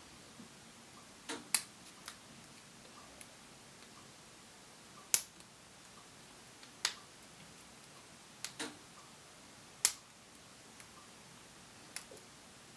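Lock pick and tension wrench working a Cisa 220/50 padlock: sharp, irregular clicks, about seven of them, spaced a second or two apart, some in quick pairs.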